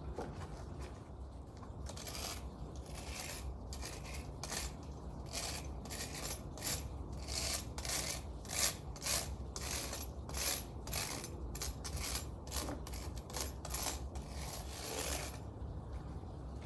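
Hand tool scraping weeds and grass out of the joints between brick pavers: an irregular series of short rasping strokes, about one or two a second, stopping shortly before the end.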